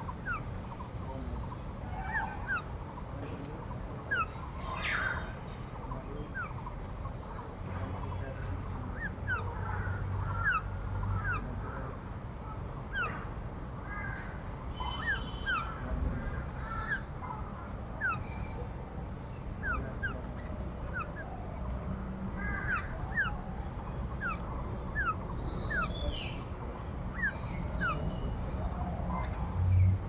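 A chorus of birds calling, with dozens of short, quick downward-sliding calls overlapping throughout and occasional rougher crow caws. A steady high hiss and a low rumble run underneath.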